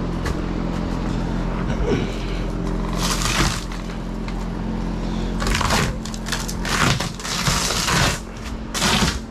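Rotted plywood boat floor being pulled and broken up by hand, in a series of crunching, cracking bursts: one about three seconds in, then several close together over the last few seconds. A steady hum runs underneath.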